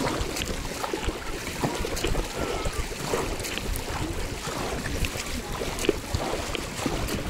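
Sea water lapping and splashing around a kayak, with scattered small splashes and wind on the microphone.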